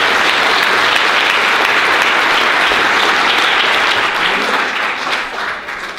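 A roomful of people applauding, steady and loud, then dying away over the last second or so.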